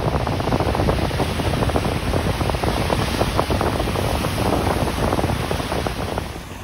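Strong wind buffeting the microphone over the rush of rough surf breaking on the shore, easing right at the end.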